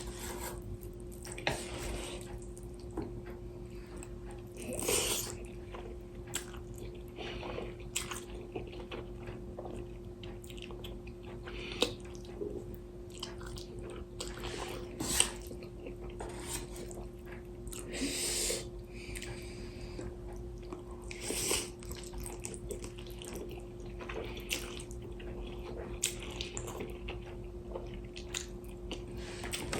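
A person eating instant noodles: a few short wet slurps and chewing, with occasional sharp clicks, over a faint steady hum.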